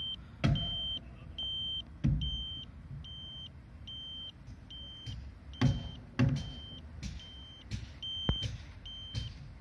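Radiation pager with a caesium-iodide scintillation detector beeping in a steady series of short high beeps, about one and a half a second, as it counts the raised radiation of a radioactive sample held close to it. A few sharp handling knocks and thuds come in between, the loudest about halfway through.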